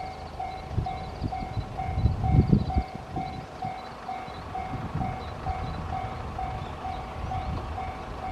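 Japanese level-crossing warning bell ringing steadily at about two dings a second, over irregular low rumbling thumps that are loudest about two seconds in.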